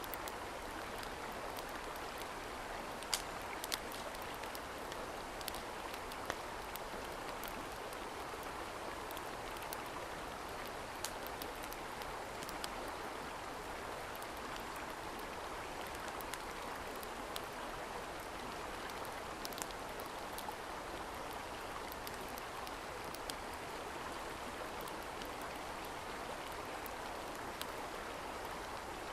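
Steady rushing of a mountain stream, with a few scattered sharp pops and clicks over it.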